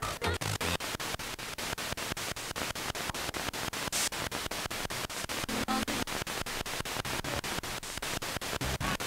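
Spirit box radio sweeping through stations: steady static chopped into a fast, even stutter many times a second, with brief snatches of broadcast sound and no clear voice coming through.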